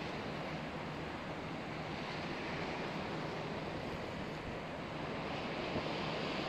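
Small sea waves washing and lapping, with wind rumbling on the microphone: an even, steady rush with no distinct events.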